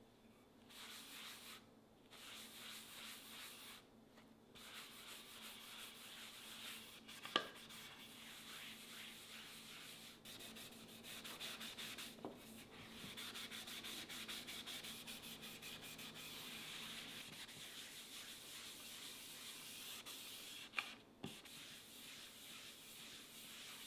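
Cloth rubbing beeswax-and-mineral-oil conditioner into the surface of an end-grain larch cutting board: a faint, steady scrubbing with a few short pauses. A few sharp knocks are mixed in.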